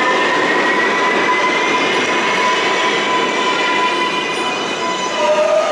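R143 subway train pulling away into the tunnel: steady rail and wheel noise with high whining tones, one of them rising slowly in pitch as the train gathers speed. A new, lower tone comes in near the end.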